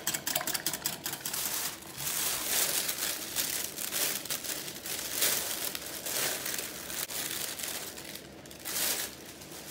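A wire whisk beats egg white in a glass bowl, a rapid run of ticks that stops about two seconds in. Then a thin plastic bag crinkles and rustles as yufka pastry sheets are pulled out of it.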